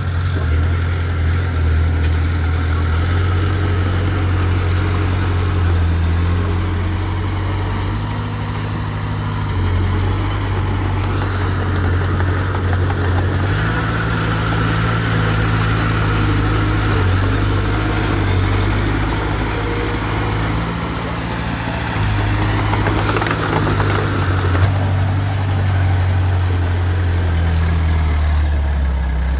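Heavy diesel engine of earthmoving machinery running continuously, its low drone stepping up and down in pitch as the engine speed changes under load.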